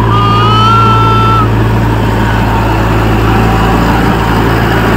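An SUV's engine running with a steady low drone while driving off-road. A brief high whistle-like tone sounds over the first second and a half.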